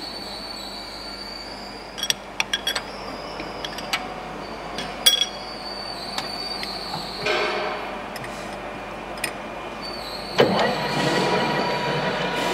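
Metal lathe: sharp metallic clicks and clinks as the tailstock is brought up and locked against the workpiece, over a steady high whine. About ten seconds in the spindle starts with a sudden rise, and the chuck runs on steadily.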